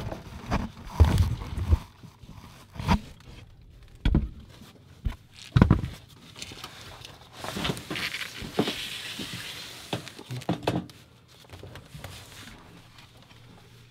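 Scattered knocks, thumps and scraping from someone moving around beneath a car, with a stretch of rustling scrapes in the middle and a few more knocks before it settles down.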